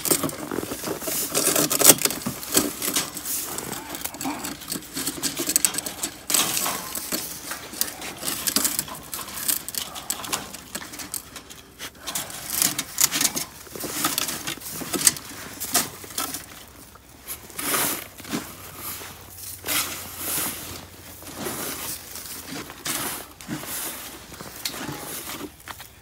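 Water buckets and tank heaters being handled and set down in straw and snow: irregular knocks, scrapes and rustling.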